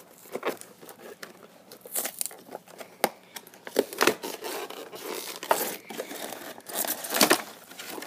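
A toy's plastic blister pack and cardboard backing being torn open and crinkled by hand: irregular sharp crackles and rips, with louder tears about halfway through and again near the end.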